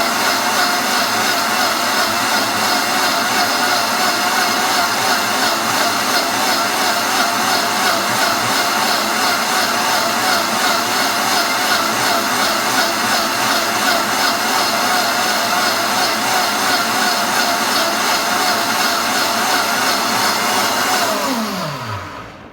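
Princess House blender running steadily at full speed, blending a green smoothie, its pitch wavering slightly. Near the end the motor winds down with a falling pitch and stops on its own, the sign that the smoothie is done.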